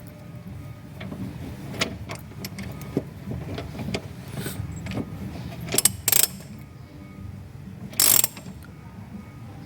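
Brake caliper piston wind-back tool being turned against a threaded caliper piston: light metallic clicks and ratchet-like ticks, with a few short, louder metal clatters about six and eight seconds in, over a steady low hum.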